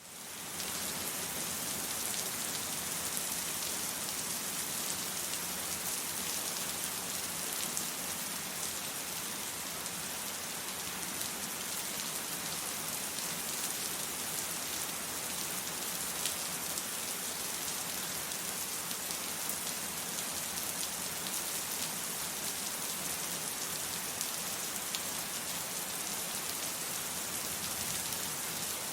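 Steady rain falling on a surface, a dense even hiss with scattered individual drop ticks, fading in at the start.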